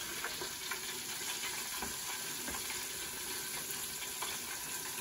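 Chicken frying in a deep pot of hot peanut oil: a steady sizzle with a few faint crackles scattered through it.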